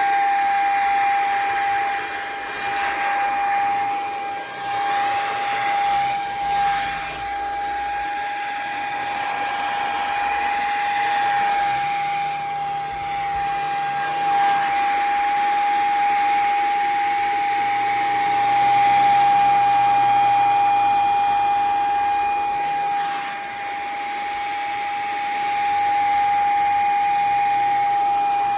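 JPHYLL handheld mattress vacuum cleaner running, with a steady high motor whine over rushing air that swells and eases in loudness as it works.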